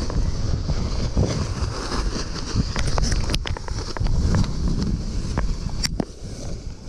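Wind buffeting a paraglider's harness-mounted camera microphone in flight: gusty, rumbling wind noise with a few sharp clicks, one just before six seconds in.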